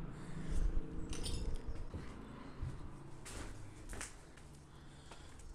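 Low rumble of wind and handling on a handheld camera's microphone, loudest in the first second, then a few scattered clicks and crunches of footsteps on debris.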